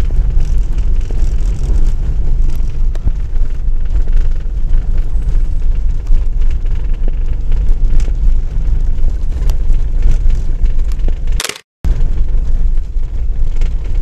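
Steady low rumble of a car driving on a snow-packed road, heard from inside the cabin: tyre and road noise with the engine underneath. It cuts out completely for a split second about three-quarters of the way through.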